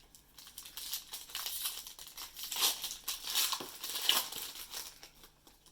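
Foil wrapper of a 2005-06 Upper Deck MVP hockey card pack crinkling and tearing as it is opened: a dense, crackly rustle lasting about five seconds.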